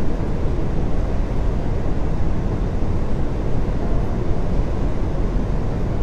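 Steady low rumbling room noise, even and unbroken, with no voices.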